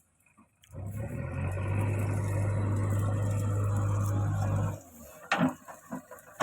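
A machine engine running steadily at constant speed for about four seconds, then cutting off suddenly.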